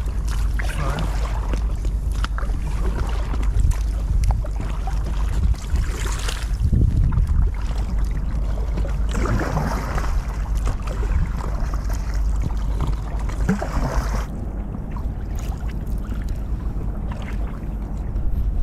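Wind rumbling on the microphone over the sound of water around an inflatable kayak on the sea. The sound changes abruptly about 14 seconds in, losing its hiss.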